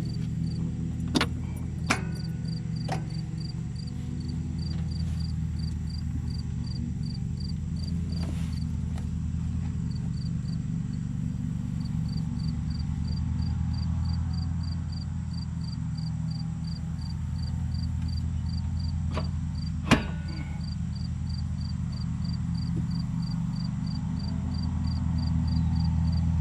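An engine running steadily at idle, with a few sharp clicks and knocks, the loudest about twenty seconds in.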